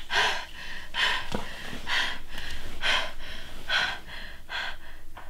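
A young woman breathing fast and heavily, gasping in and out about twice a second.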